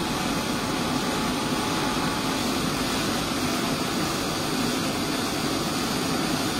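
Brazing torch burning with a steady hiss while a cordless drill turns a .308 brass case in the flame, heating the case neck for annealing.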